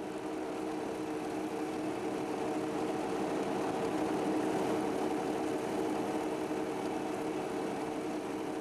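Engine of a Ford-based County 6x4 truck running steadily as it drives, swelling a little louder toward the middle and easing off again.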